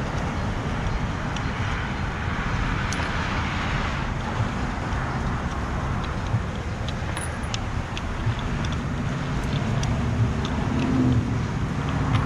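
Steady low rumble of road traffic, with scattered light clicks of small valve parts and screws being handled.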